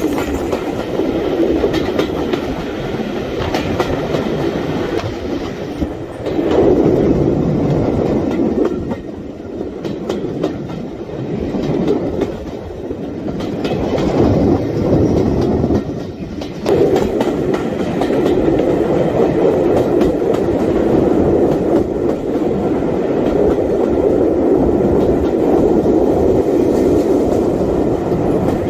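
Train running on the rails, a continuous rumble of wheels and running gear that dips in loudness for a few seconds about a third of the way in and swells again.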